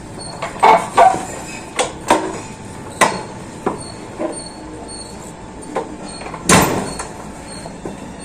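Irregular sharp knocks and clanks, about nine in all, the loudest about six and a half seconds in, over a steady background hiss.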